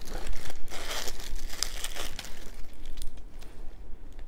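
Clear plastic bags crinkling as hands rummage through a pile of bagged necklaces, busiest in the first two seconds and thinning out toward the end.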